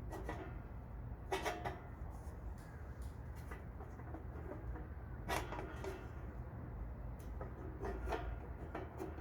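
Thin sheet-metal parts of a small wood-burning stove knocking and clanking as they are handled and fitted together. There are several separate knocks, the loudest about a second and a half in and about five seconds in, and a few more near the end.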